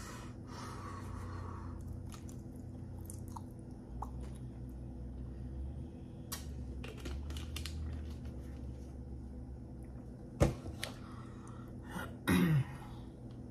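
Mouth sounds of drinking water from a plastic bottle and swallowing, with scattered small clicks. A sharp knock about ten seconds in and a short throat sound near the end, over a low steady hum.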